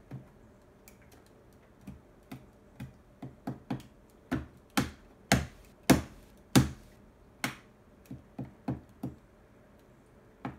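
A string of sharp light taps, roughly two a second and uneven, growing louder toward the middle and then softer: a test tube being tapped to shake live ants out of it and down into a gel ant farm.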